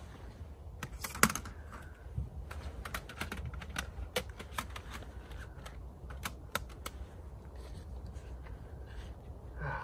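Scattered small clicks and taps at an irregular pace, with one sharper knock about a second in, over a steady low rumble.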